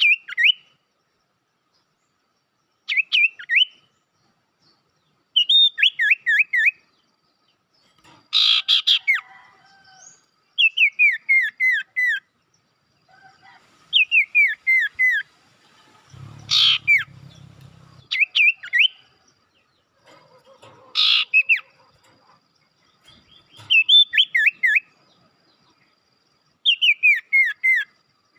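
Sirtu songbird lure recording: repeated short phrases of quick, falling chirps, one every two to three seconds, broken three times by a louder, harsher call.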